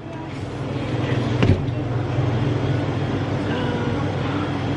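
Steady low mechanical hum, with a single short knock about a second and a half in.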